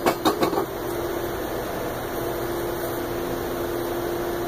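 A few brief knocks in the first half second, then a steady background hum with a faint low tone.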